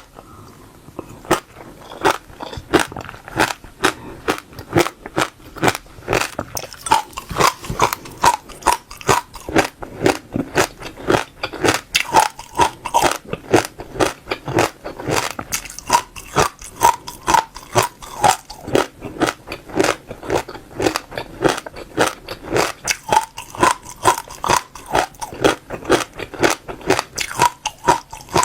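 Passion fruit seeds crunched between the teeth in close-up chewing: a fast, steady run of crisp cracks, several a second, after a brief lull at the start.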